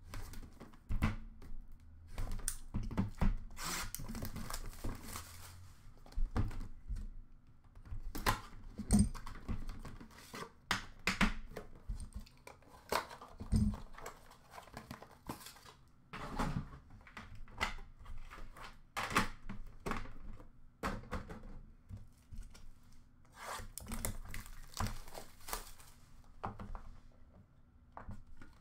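Plastic shrink wrap being torn and crinkled off a The Cup hockey card tin, mostly in the first half, with scattered knocks and clunks as the metal tin and its inner box are handled and opened.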